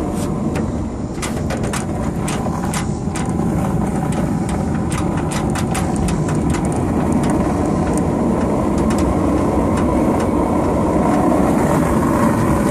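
Pickup truck driving off and running along the street, a steady rumble of engine and road noise, with a quick run of sharp clicks and rattles over the first six seconds or so.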